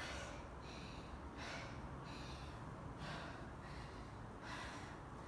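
A person breathing audibly: short airy breaths in and out, about one a second.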